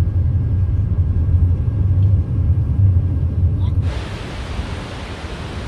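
A steady low rumble, then about four seconds in an abrupt switch to a loud, steady rushing roar of falling water from Skógafoss waterfall, with wind on the microphone.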